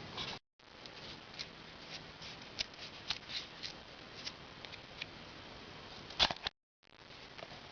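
Scattered light clicks and taps of tools and engine parts being handled, with one sharper click about six seconds in.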